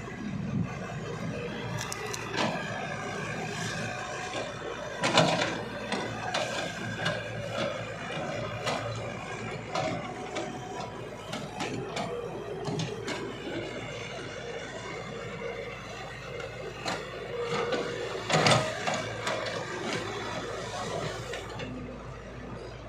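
Excavator working: continuous mechanical clanking and grinding, with two louder knocks, one about a quarter of the way in and one near the end.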